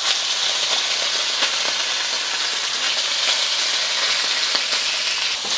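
Sliced beef frying in oil in a smoking-hot steel wok: a loud, steady sizzle, with faint clicks of the utensil stirring the meat.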